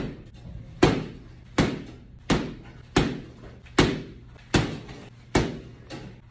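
Boxing gloves punching a Ringside heavy bag: about eight sharp pops in a steady rhythm, roughly three-quarters of a second apart, the sound of punches thrown to snap and pop on contact.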